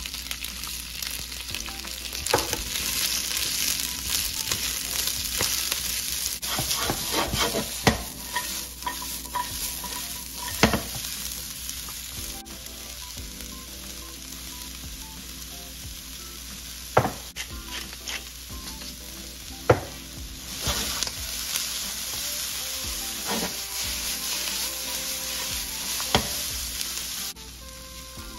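Onions and string beans sizzling in a hot nonstick wok as they are stir-fried with a wooden spatula, with sharp knocks and scrapes of the spatula against the pan every few seconds.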